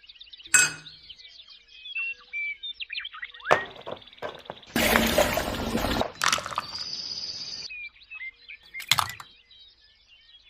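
Small birds chirping steadily, broken by several short, loud noisy bursts and clinks that start and stop abruptly.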